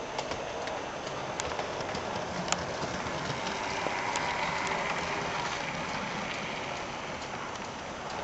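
00 gauge model train running along the track, a steady rolling hiss with irregular clicks of wheels over rail joints, growing louder about halfway through and then fading as it passes.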